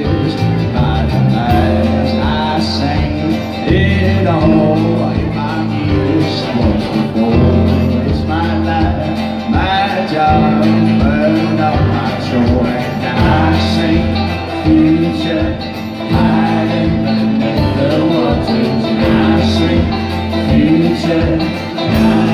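Live band playing a folk-pop song with acoustic guitar, banjo, drum kit and keyboard, at a steady beat.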